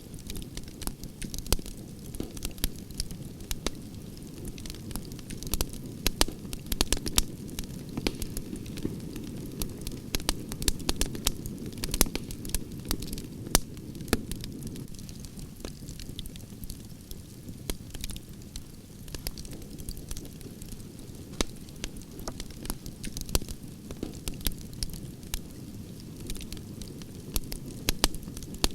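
Campfire of burning logs crackling, with frequent sharp irregular pops over a steady low rumble of flames.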